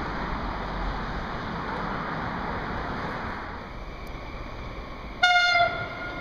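Sapsan (Siemens Velaro RUS) high-speed electric train sounding one short, high horn note of about half a second, about five seconds in, as it approaches. Before it comes a steady rushing noise.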